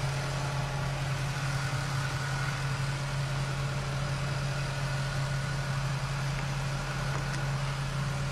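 A motor vehicle's engine idling steadily, an even low hum with no revving or changes.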